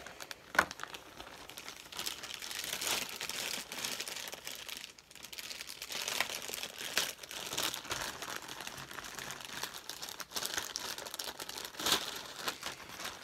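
Clear plastic bag crinkling and rustling irregularly as it is handled and pulled open, with a short lull about five seconds in.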